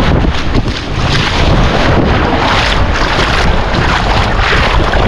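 Seawater sloshing and splashing around a camera held at the surface of shallow sea water, with wind buffeting the microphone in a steady low rumble.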